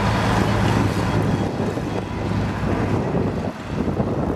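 John Deere farm tractor's diesel engine running hard under full load while pulling a weighted tractor-pull sled: a steady low engine drone over a noisy roar that eases a little near the end.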